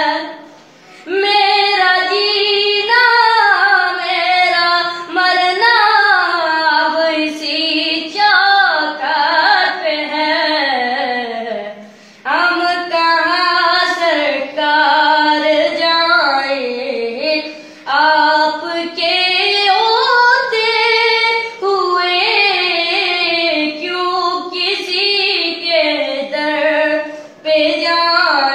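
A boy singing an Urdu naat solo, in long, ornamented phrases that bend up and down in pitch, breaking off briefly between phrases a few times.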